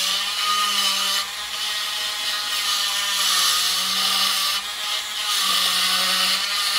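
Dremel rotary tool on a flexible shaft running at speed, its worn bit grinding into the corners of a magnesium chainsaw casting, a steady whine with a grinding hiss. The pitch sags briefly a few times as the bit is pressed into the metal.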